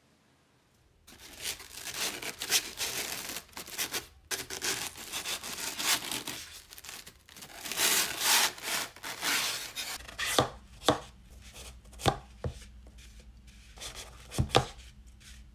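Polystyrene foam packaging rubbing and scraping as a ribbed vase is worked out of its moulded slot. About ten seconds in this gives way to a knife cutting a block of green floral foam, with a few sharp knocks.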